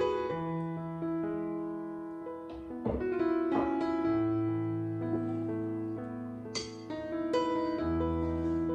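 Soft background piano music: slow held notes over a low bass note that shifts every second or two.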